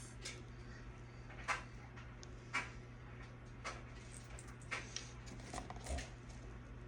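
Light clicks and taps, about one a second, from small items and packaging being handled, over a steady low hum.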